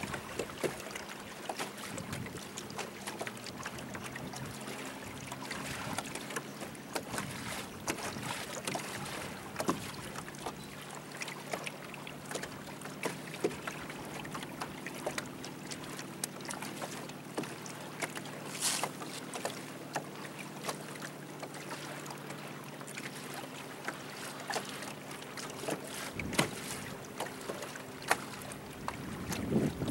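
Small boat under way on a lake: a steady low motor hum with water lapping and splashing against the hull.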